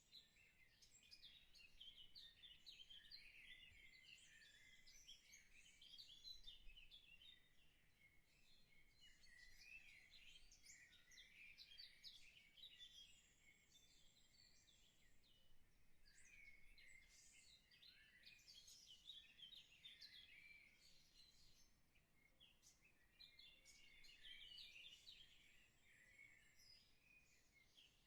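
Faint, continuous chorus of small birds chirping and twittering, many short high calls overlapping.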